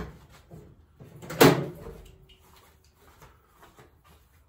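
Hand tools and small metal parts being handled: one loud knock about one and a half seconds in, then light clicks and rattles.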